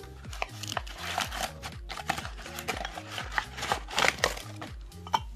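Plastic bags and paper wrapping rustling and crinkling as wrapped items are pulled out and unwrapped. The crackling is loudest near the end, over background music with a steady bass line.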